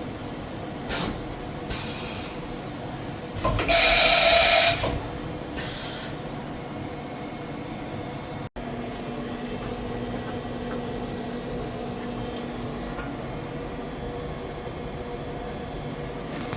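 Kitamura MyCenter 4XiD CNC vertical machining center running with a steady hum. It gives several short hisses and one loud hiss with a whistling edge, about a second long, around four seconds in. After an abrupt break the hum goes on, with a low tone that stops a few seconds later.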